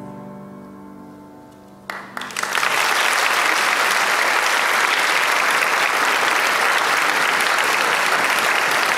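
The grand piano's last chord fades away. About two seconds in, audience applause breaks out, swells quickly and carries on steadily.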